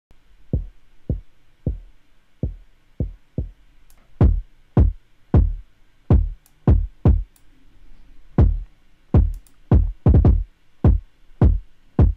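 Hip-hop kick drum pattern played back on its own, dry and quieter at first. From about four seconds in it plays through its processing chain: louder, with a harder crack and deliberately pushed into distortion.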